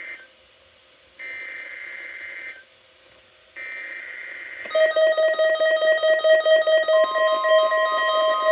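NOAA Weather Radio SAME header: digital data bursts, each a harsh warbling buzz about a second long, with gaps between; the tail of one and two more are heard. Then, a little under five seconds in, the loud tone alert starts: a steady, rapidly pulsing alarm tone, with a second steady higher tone joining about two seconds later.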